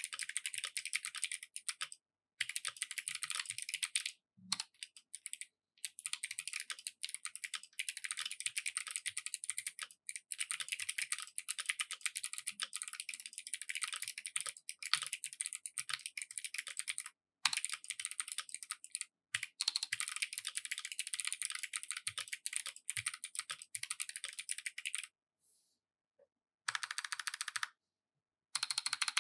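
Fast typing on a custom 65% mechanical keyboard with clicky Kailh Box Jade switches, an FR-4 plate and Cherry PBT keycaps: a dense stream of sharp, crisp clicks in runs with short pauses, the longest about 25 seconds in.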